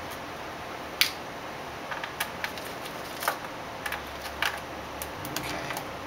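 Scattered, irregular clicks and taps of a small screwdriver and the plastic access covers on the underside of a laptop being handled and unscrewed, the sharpest click about a second in.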